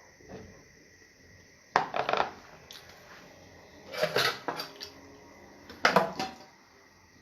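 Clinking and scraping against a dish, in three short bursts about two seconds apart.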